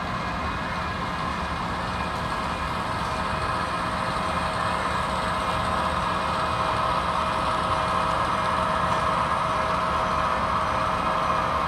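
Diesel locomotive engine running steadily, slowly getting louder.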